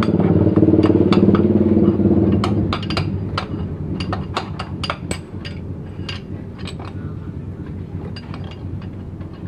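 Repeated light metallic clinks and taps of tools and metal parts being handled. An engine hums at the start and dies away after about two and a half seconds.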